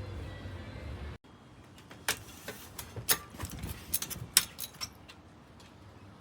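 Metal parts of a patio umbrella clicking and rattling as they are handled: a string of sharp, irregular clicks, loudest about three and four seconds in, after a steady low hum that cuts off about a second in.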